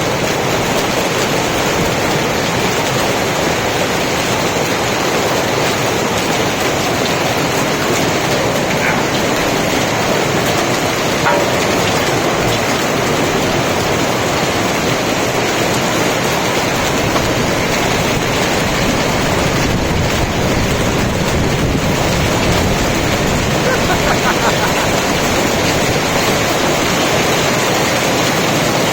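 Hailstorm: hail and heavy rain coming down hard as a dense, steady noise of countless impacts that does not let up.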